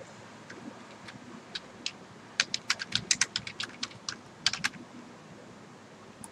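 Computer keyboard typing: a few single keystrokes, then a quick run of keystrokes for about two seconds in the middle as a two-word label is typed out.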